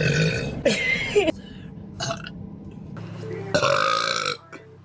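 A girl burping: a long burp at the start, a short one about two seconds in, and another long one near the end.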